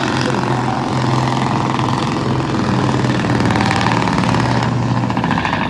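MTU 2000-series V8 common-rail diesel in a Peterbilt pulling truck running hard under load as it drags the pulling sled, with a steady droning note. The drone drops away about five seconds in as the engine comes off full power.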